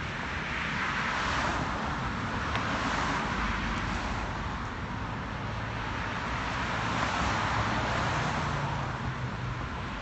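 Road traffic on a multi-lane city avenue: cars driving past with tyre and engine noise that swells and fades, loudest as passing cars go by about a second in and again around seven seconds.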